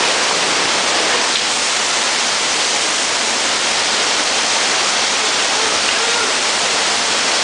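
Waterfall pouring down, a steady rush of falling water heard from up close beneath it.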